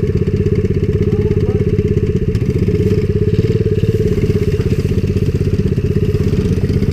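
Small four-stroke single-cylinder pit bike engine running steadily under way.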